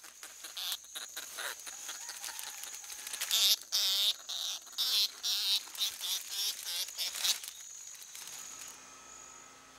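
Tropical rainforest insect chorus with a steady high-pitched whine and many irregular chirps and clicks, loudest around the middle. About eight seconds in it gives way to a quieter room hum.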